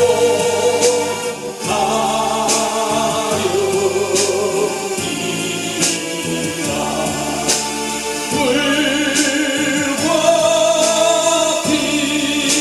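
A man singing a Korean hymn into a microphone with a wavering vibrato on held notes, accompanied by his own electronic keyboard with light rhythmic cymbal accents.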